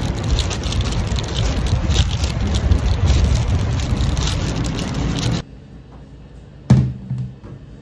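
Steady rushing noise, strongest in the low end, that cuts off abruptly about five seconds in; one sharp knock follows near the end.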